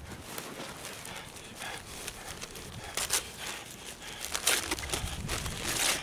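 Paper sandwich wrapper crinkling as a foot-long sub is unwrapped by hand, in short rustling bursts: one about halfway through, another about a second later, and the loudest near the end.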